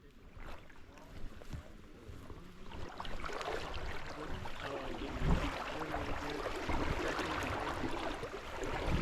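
Water rushing and splashing, growing louder about three seconds in, with low thumps of wind or handling on the microphone.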